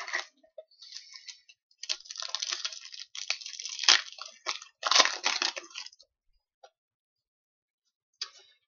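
Trading cards and their foil pack wrapper being handled: rustling and crinkling in uneven spurts for about five seconds, then stopping.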